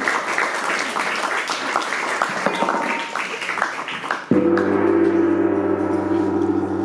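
Audience applauding, then about four seconds in a large hanging gong is struck once with a mallet and rings on with steady low tones.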